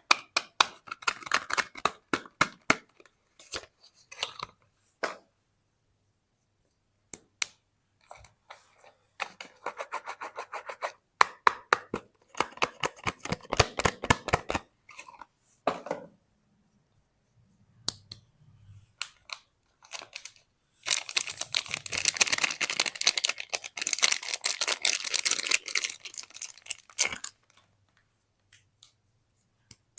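Soap packaging being unwrapped by hand: bouts of crinkling and crackling wrapper, with a longer, louder stretch of continuous crinkling about two-thirds of the way through.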